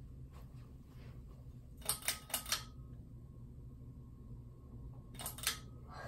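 42-inch Hampton Bay Landmark ceiling fan running with a low, steady hum. Over it come sharp clicks from the pull-chain switch being worked: four close together about two seconds in, and two more near the end.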